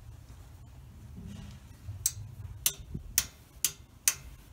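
A series of about five sharp clicks, roughly two a second, starting about two seconds in, over a low steady rumble.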